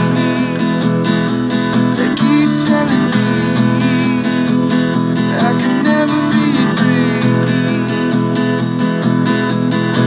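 Acoustic guitar strummed in a steady song rhythm, with a man singing along.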